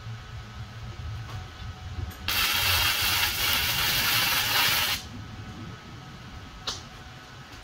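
Electric arc welding on steel plate: a loud, even crackling hiss that starts about two seconds in and stops suddenly under three seconds later, one short weld. A single sharp click near the end.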